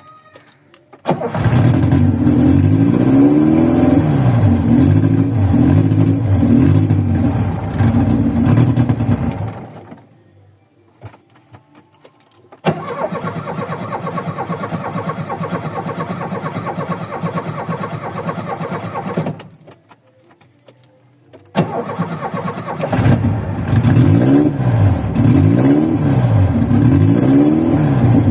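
VW Voyage's carbureted four-cylinder engine cold-starting: it runs roughly with the revs rising and falling, then dies, the starter cranks it for several seconds without it catching, and on the next crank it fires and runs unevenly again with the revs wandering up and down. The rough running and stalling come from its worn old parts and bad carburetor after sitting for days.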